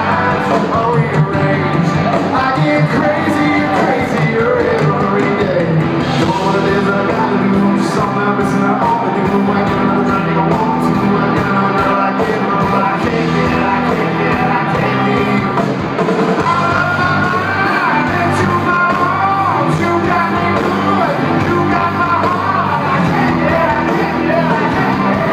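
Live country band playing through a big PA in a hall: a lead vocal over electric guitars, keyboards and drums.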